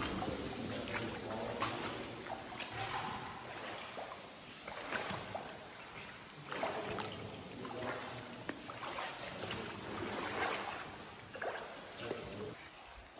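Feet wading through shallow water on a cave floor, sloshing and splashing in irregular steps about once a second.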